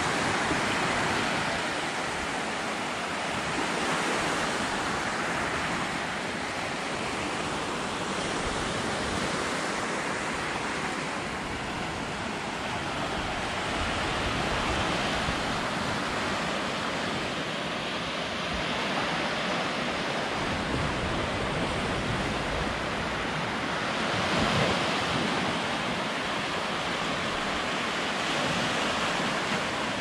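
Small Mediterranean waves breaking and washing up a sandy beach: a steady wash of surf that swells and eases every several seconds.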